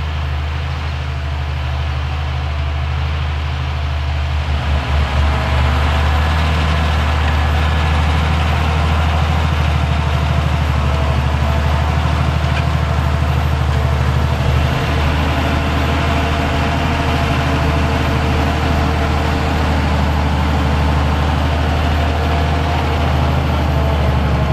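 Fendt 1050 Vario tractor's big six-cylinder diesel working steadily under heavy load as it pulls a Farmet Softer 11 disc harrow, with the rush of the discs and tyres through the soil. The sound grows louder over the first five seconds or so as the tractor comes closer, then holds steady.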